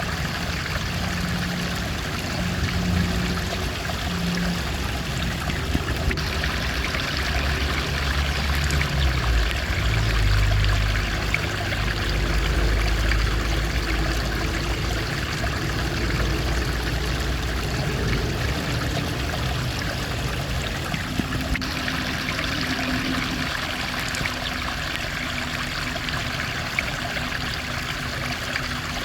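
Stream water flowing steadily, an even rushing with no let-up. A low rumble comes and goes under it for much of the first two-thirds.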